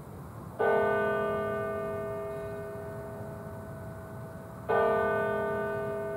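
Church bell struck by a hammer for the Angelus: two single strokes about four seconds apart, each one ringing out and slowly fading.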